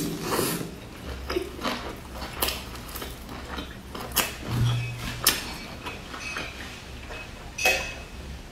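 Close-miked eating: chewing a crisp pan-fried stuffed pancake, with scattered crunches and wet mouth sounds. Near the end comes a sip from a metal cup.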